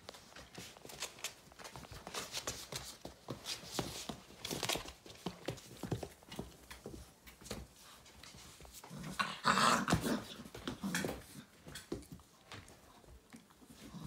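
Great Dane puppies play-fighting: scuffling paws and mouthing clicks with small growls, and a louder stretch of growling about nine seconds in that lasts a couple of seconds.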